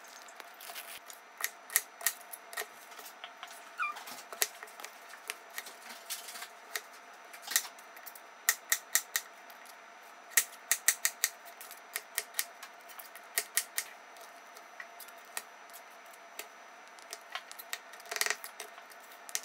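Kitchen knife cutting a potato into cubes on a thin plastic cutting board: irregular runs of sharp taps as the blade strikes the board.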